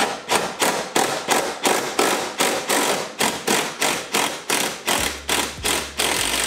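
Steady hammer blows on metal parts of a car's rear suspension, about three blows a second, each with a short ring.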